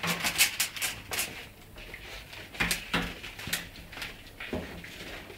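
Wicker wastebasket scraping and knocking on a tiled floor as a bull terrier puppy shoves it along with its head inside: a quick run of scrapes in the first second or so, then scattered single knocks.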